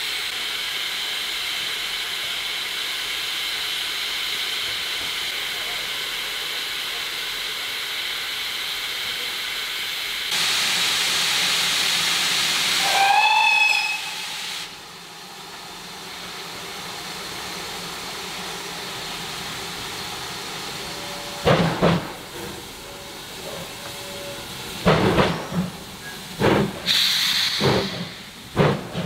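Steam locomotive with a steady hiss of escaping steam, which grows louder, then a short whistle a little before halfway, after which the hiss stops. About eight seconds later it starts away with loud, sharp exhaust beats: a pair at first, then a quickening run.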